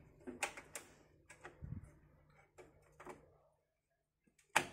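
Graphics card being pushed into a PC motherboard's expansion slot inside the cabinet: a string of light clicks and knocks of metal and plastic, with a dull thud about halfway and a louder click near the end.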